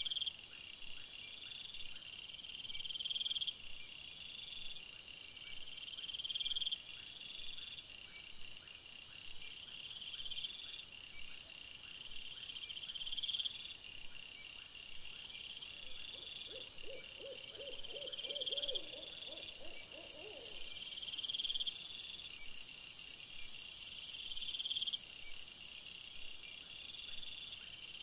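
Night insects, crickets, chirping steadily in overlapping rhythmic series of high-pitched chirps. About two-thirds of the way through, a brief, lower-pitched, rapid trilling call joins in for a few seconds.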